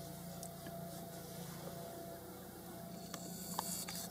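Low, steady hum of an idling vehicle engine, with a few short, faint clicks and rustles near the end.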